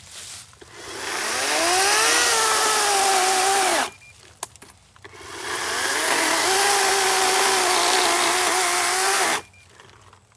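Greenworks G-Max 40-volt 16-inch cordless electric chainsaw, run twice: each time the motor spins up with a rising whine, holds a steady, slightly sagging pitch while cutting through wood, and stops abruptly after a few seconds.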